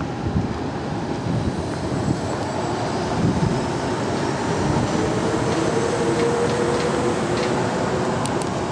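Jet airliner engine noise across the airport: a steady rumble with faint whining tones, mixed with wind on the microphone.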